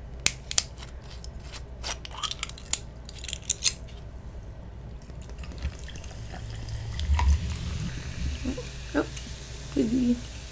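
A bottle cap twisted open with a run of sharp clicks, then a watermelon drink poured from the bottle into a glass mason jar, the pour building up over the second half.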